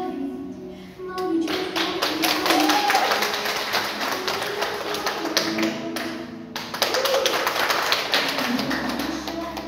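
Audience applauding over the routine's music, starting about a second in, with a brief break about two-thirds through and easing off near the end.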